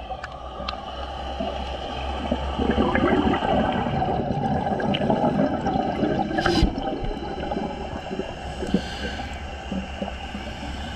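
Scuba diver's exhaled bubbles gurgling underwater, loudest in a burst about two to four seconds in, over a steady low hum. A single sharp click about halfway through.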